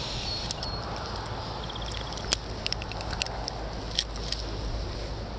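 Steady rush of a mountain river with wind buffeting the microphone, and scattered sharp clicks and light rattles, most of them between about two and four seconds in.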